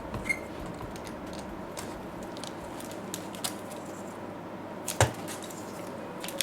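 Scattered light clicks and taps of items being handled during an unboxing, with one louder knock about five seconds in.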